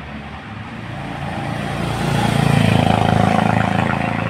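Honda CB350 single-cylinder motorcycle approaching at speed and passing by, its engine note growing louder to a peak two to three seconds in, then easing slightly near the end.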